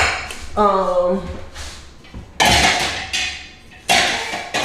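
Metal pots, pans and lids clanking as they are handled and set down: four sharp knocks, each with a short ring.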